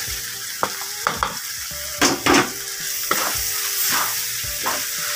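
Pork innards and liver sizzling in a metal wok while a wooden spatula stirs them, scraping and knocking against the pan several times, loudest about two seconds in.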